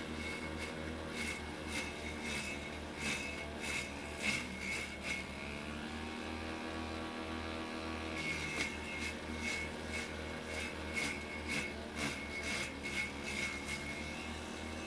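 Homemade vegetable chopper driven by a water-pump engine, running steadily while its spinning grass-trimmer blade strikes greens in rapid clusters of sharp clicks. The engine note sags briefly about four seconds in as it takes the load. The blade runs clear for a couple of seconds before the chopping clicks resume.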